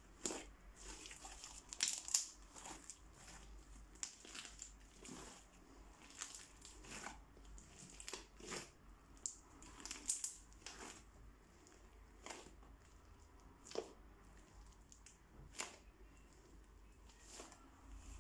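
Crunchy slime packed with small beads being squeezed and kneaded by hand, giving irregular sharp crackles and pops with softer squishing between them.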